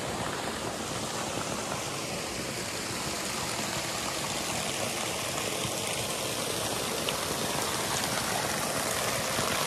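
Water of a mountain torrent rushing steadily, growing a little louder toward the end.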